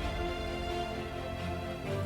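Soft background music with held, steady tones.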